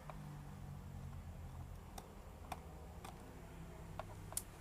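Scattered sharp clicks, about six at uneven intervals, from a screwdriver and small screws on the plastic underside of a laptop, over a low hum.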